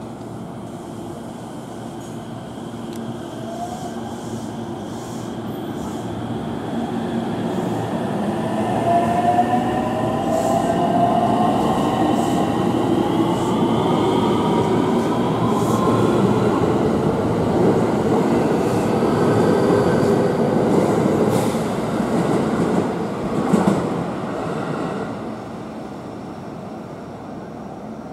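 JR West commuter electric train running along the station platform: wheels rumbling on the rails and the traction motors whining, the whine rising in pitch. A single sharp knock comes near the end, and then the sound dies down.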